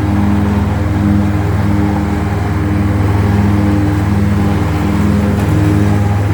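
Kubota GR2120 ride-on mower's three-cylinder diesel engine running steadily while mowing.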